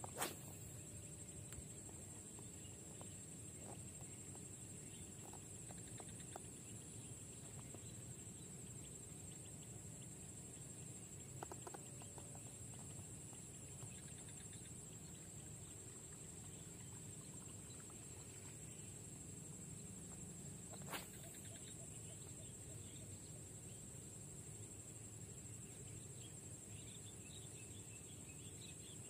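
Faint outdoor evening ambience: a steady high-pitched insect drone over a low background rumble, broken by two sharp clicks, one just after the start and one about two-thirds of the way through.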